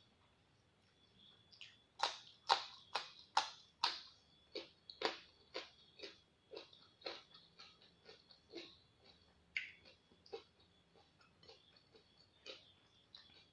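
Close-miked crunching as crisp raw vegetables are bitten and chewed. Sharp crunches start about two seconds in, several a second, loudest for the first couple of seconds, then softer and sparser.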